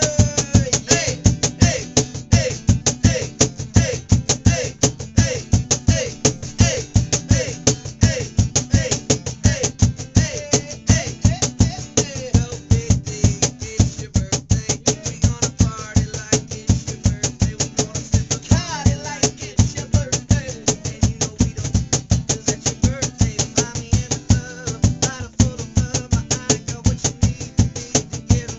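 Live acoustic band playing: guitar over a fast, steady percussion beat, with a melody line bending above it.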